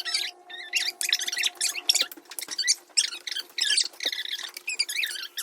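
Slime being squeezed and kneaded by hand, giving a rapid, irregular run of wet squelches, squeaks and small pops, over a faint steady hum.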